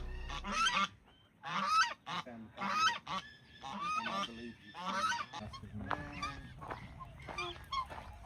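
Geese honking over and over, one short call after another, with some calls overlapping.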